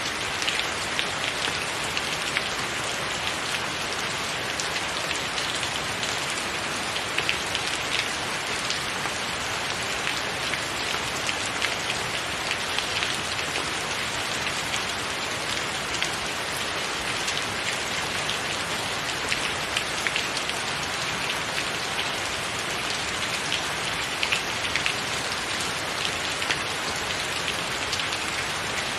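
Steady rain: an even hiss of falling water dotted with many sharp individual drop impacts.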